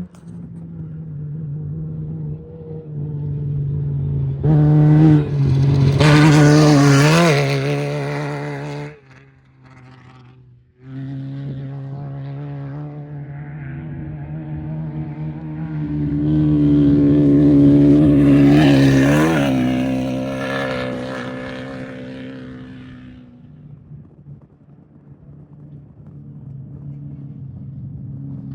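Off-road race vehicles passing at speed, the engine sound swelling to a peak and fading away twice, about six and eighteen seconds in, over a steady low engine hum. The sound drops out briefly and suddenly between the two passes.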